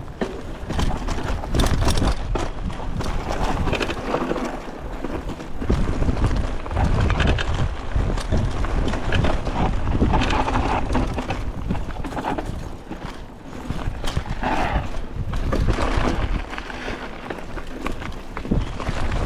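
Mountain bike descending a rough dirt trail: an irregular clatter and rattle of tyres, frame and chain over bumps, over a steady low rumble of wind on the microphone.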